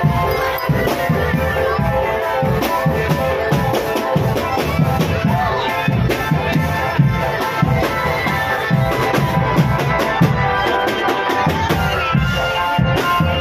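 Marching drum band playing: drums beating a steady rhythm under held melody notes.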